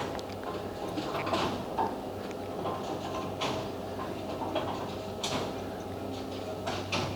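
Bowling alley ambience: a steady low machinery hum with scattered knocks and pin clatter from the lanes every second or two.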